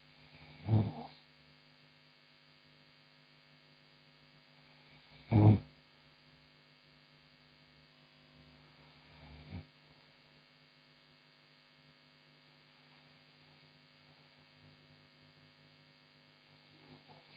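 A woman snoring in her sleep: three short snores about four to five seconds apart, the second the loudest and the third fainter, with a faint breath near the end, over a steady electrical mains hum.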